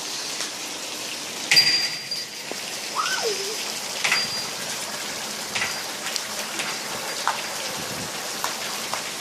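Steady rain falling, with individual drips striking a surface in sharp knocks, the loudest about one and a half seconds in, a few of them leaving a brief ringing note.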